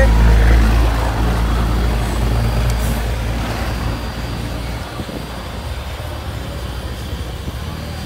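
Low, steady rumble of a motor vehicle's engine running nearby, loudest in the first second or so, then settling.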